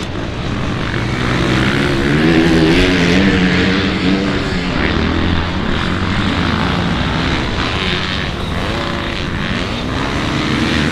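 Motocross bikes racing, several engines overlapping, their pitch rising and falling as the riders open and close the throttle.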